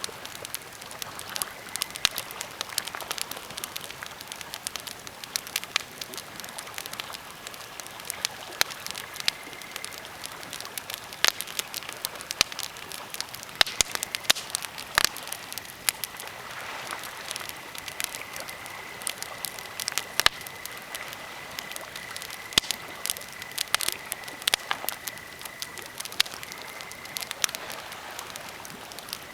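Birch and pine campfire crackling, with irregular sharp pops over a steady low hiss. A thin, high whistle sounds faintly early on and runs steadily through the middle stretch.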